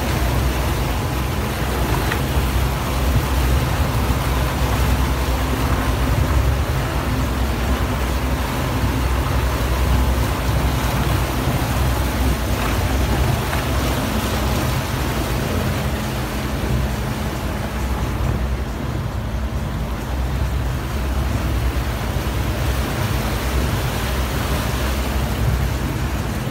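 Outboard motor of a small boat running steadily under way, with a steady rush of wind and water.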